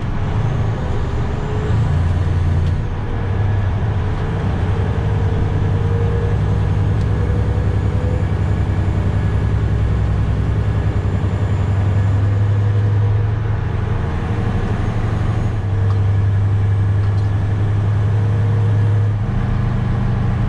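Semi truck's diesel engine running under load, heard from inside the cab: a steady low drone whose pitch steps a few times as the engine speed changes.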